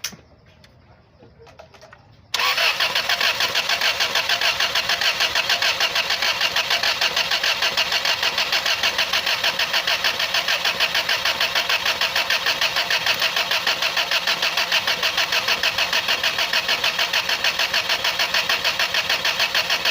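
A rebuilt engine being cranked on its starter motor. It starts suddenly about two seconds in and keeps turning over in an even, fast pulsing rhythm without catching.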